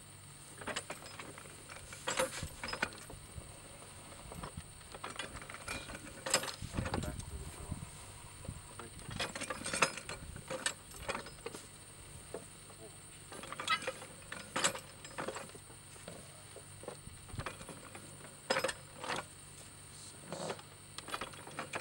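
Hand-lever extraction jack of a percussion drilling rig clicking and clanking in short bursts every second or two as its levers are pumped up and down, the clamp gripping and lifting the extension rod out of the borehole.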